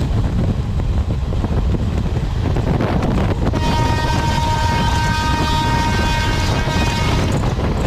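Indian Railways train running with a steady, heavy rumble. About three and a half seconds in, a train horn sounds one steady multi-tone blast lasting roughly three and a half seconds, then stops.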